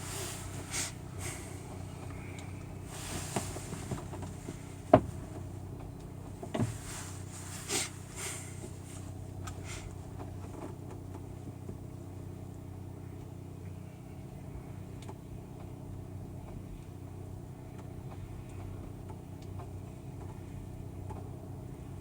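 Steady low hum and rush of air inside a Schleicher ASK21 glider's cockpit during its cable launch, with a few sharp knocks in the first ten seconds, the loudest about five seconds in.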